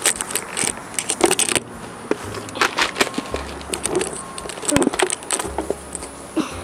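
Irregular rustling, clattering handling noises in three bursts, with crunching steps on wood-chip mulch.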